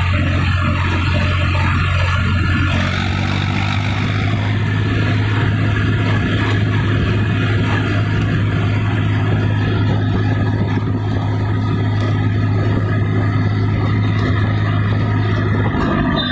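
Eicher 480 tractor's diesel engine running steadily under way on the road, heard from the driver's seat right by the exhaust stack, with a slight change in pitch about three seconds in.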